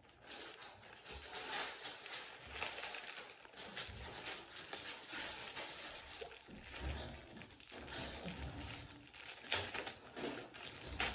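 Plastic mailer bag crinkling and rustling irregularly as it is handled and pulled at, with a few dull low bumps.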